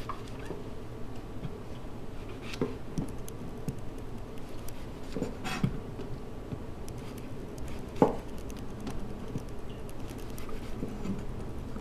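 Kitchen knife slicing large white mushrooms on a cutting board: irregular light knocks of the blade on the board, with a few sharper knocks spread out.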